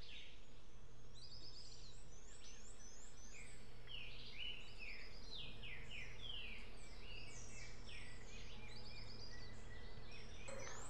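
Several forest birds calling and singing at once: many short, falling whistled notes and brief trills, overlapping throughout, over a faint steady low hum.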